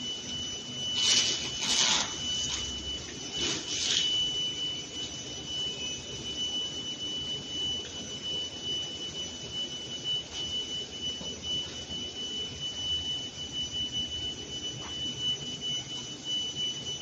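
Industrial machinery running with a steady high-pitched whine over a low hum and hiss, with a few short clattering noises in the first four seconds.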